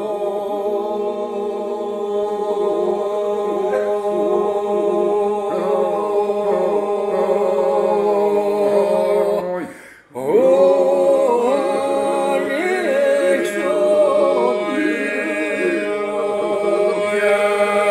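Vlora-style Albanian polyphonic men's singing, a cappella: a steady held drone (iso) under lead voices weaving ornamented melodic lines. The singing breaks off briefly about ten seconds in and then resumes.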